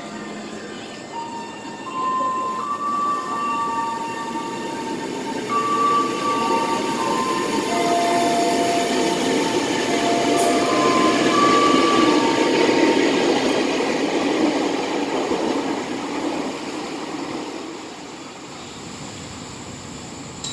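KRL electric commuter train pulling away from the platform and running past: a motor whine that steps between several steady notes over the rising rumble of wheels on rails, which peaks about halfway through and fades as the last cars leave.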